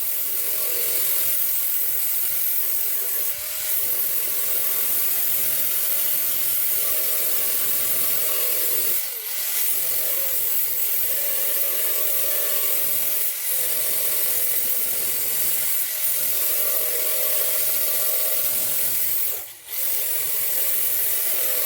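A power tool sanding paint and surface rust off a steel trunk lid, running steadily with a few brief dips as it lifts off the metal, the deepest near the end.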